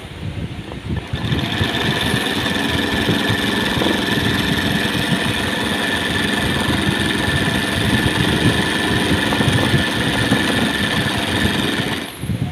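Sewing machine running steadily while stitching free-motion embroidery into hooped dupatta fabric, a busy mechanical chatter with a steady whine. It comes up to full speed about a second in and drops off briefly near the end.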